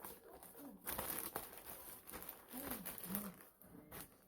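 Plastic packaging crinkling as a parcel is unwrapped by hand.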